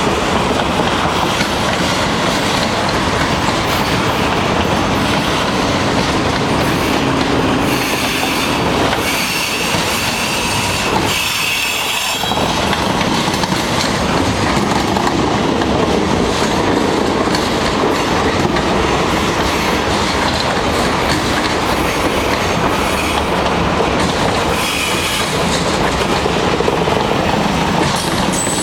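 Freight train cars rolling past close by: a steady rumble and clatter of steel wheels on the rails. High-pitched wheel squeal rises for a few seconds about a third of the way in, and again briefly later.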